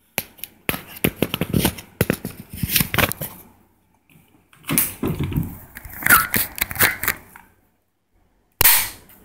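Handling noise: quick runs of clicks, taps and rustles as things are picked up and moved on a wooden table, then a sharp loud knock near the end.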